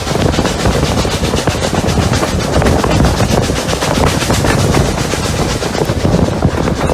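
Double-headed steam train of locomotives Rx207 and 621 heard on board while running: a loud, steady rush of locomotive and running noise with rapid clicking from wheels and rails.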